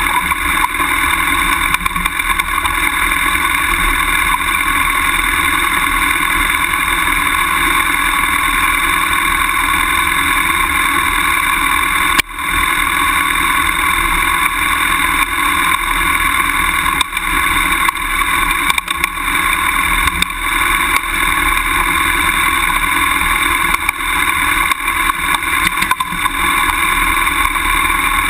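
BMW F800GS parallel-twin motorcycle engine running steadily as the bike rides along a rough trail, with a brief dropout about twelve seconds in.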